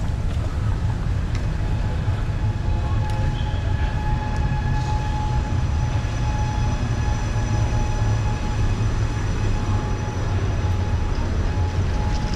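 Electric passenger train running into a covered station platform: a steady low rumble with a high electric whine that sets in about two seconds in.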